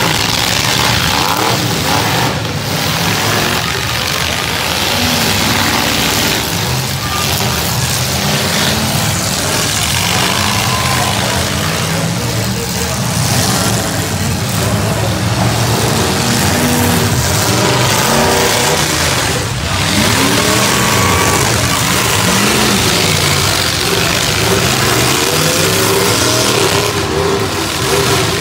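Several full-size demolition derby cars' engines revving hard over one another, their pitch rising and falling, with occasional bangs as cars collide. Voices from the crowd sound underneath.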